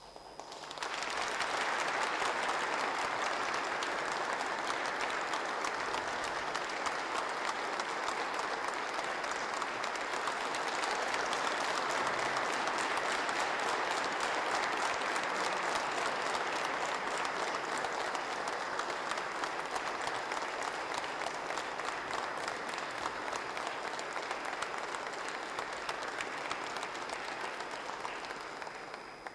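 Large audience clapping, long sustained applause that starts about a second in and dies away near the end.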